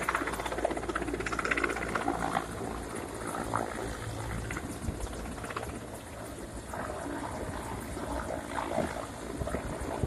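Mi-8 helicopter hovering with an underslung load, its rotors and turbine engines making a steady noise.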